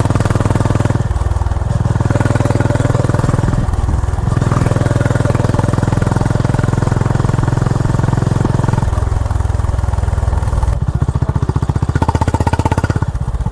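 Honda H'ness CB350's air-cooled single-cylinder engine and exhaust running under way with a pulsing thump. The tone shifts briefly about a second in, about four seconds in and again near nine seconds, as the throttle or gear changes.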